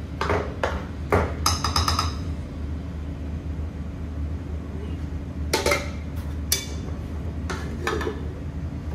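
Kitchen utensils knocking and scraping against a large aluminium cooking pot of white sauce: a few sharp knocks, a quick rattling run of taps with a metallic ring about one and a half seconds in, then several more knocks later on, over a steady low hum.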